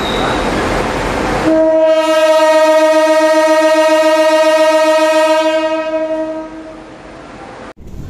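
Train running on the rails, then a diesel locomotive's horn sounds one long steady blast, starting about one and a half seconds in, held for about five seconds and fading away near the end.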